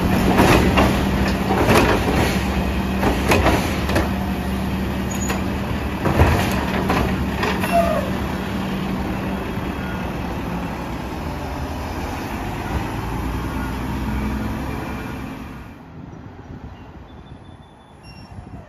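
Mack LR garbage truck's diesel running with a steady hydraulic hum while the Labrie Automizer's automated arm lifts, shakes and lowers a trash cart, the cart banging against the hopper several times in the first eight seconds. The hum eases off after about ten seconds, and the sound drops to a much quieter street near the end.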